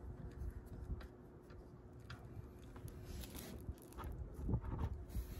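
Faint scattered clicks and taps of a gloved hand working the oil pan drain plug loose, over a low background rumble, with a brief hiss about three seconds in.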